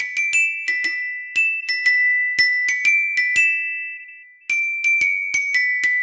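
Bell lyre's metal bars struck one at a time with a beater, playing a melody of ringing single notes about two to three a second. A little after three seconds in, one note is left to ring and fade for about a second before the melody picks up again.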